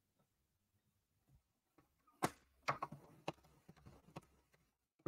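A paper trimmer fitted with a scoring blade scoring cardstock. About two seconds in there is a sharp click, then a couple of seconds of clicking and scraping as the blade is run along the track.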